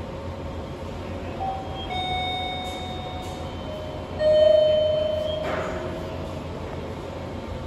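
Train station concourse ambience: a steady low hum with a few electronic chime tones, the loudest about four seconds in, ringing out and fading over a second or two.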